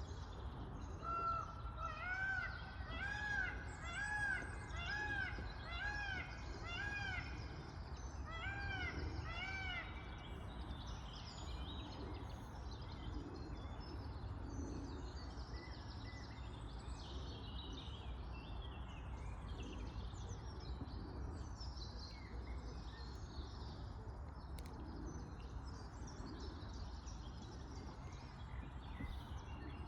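A bird calls a series of about ten loud, ringing, arched notes, roughly two a second with a short break, in the first ten seconds. After that, fainter chirps from other birds continue over a steady low outdoor background noise.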